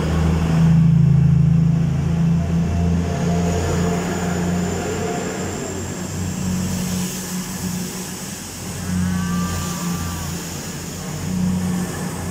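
East Midlands Railway diesel multiple unit pulling out close past the platform, its underfloor diesel engines running with a low steady drone. A thin high whine climbs slightly from about three seconds in. The sound is loudest about a second in and slowly fades as the train draws away.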